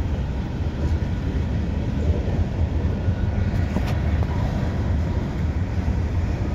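Freight cars of a slow-moving Norfolk Southern freight train rolling past: a steady low rumble of steel wheels on rail, with a few faint clanks.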